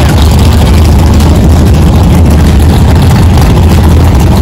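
Loud, steady low rumble of classic muscle-car engines idling and creeping forward in a line of cars.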